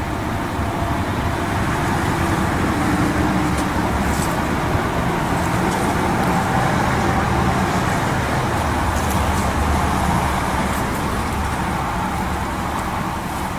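Road traffic: a passing vehicle's tyre and engine noise swells for several seconds and then fades.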